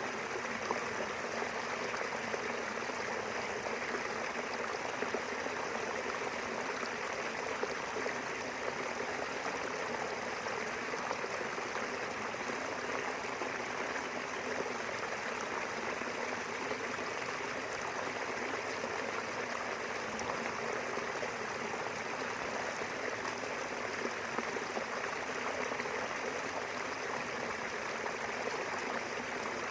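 Small river flowing steadily past rice fields: a continuous, even rush and babble of running water.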